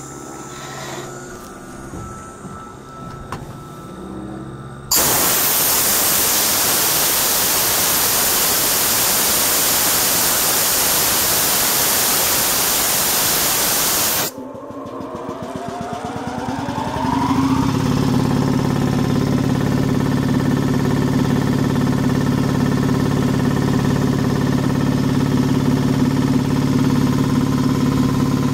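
A loud steady hiss for about nine seconds that cuts off suddenly. Then the Ingersoll Rand 2545E10V two-stage air compressor's electric motor starts, rising in pitch for a couple of seconds, and the compressor settles into running steadily.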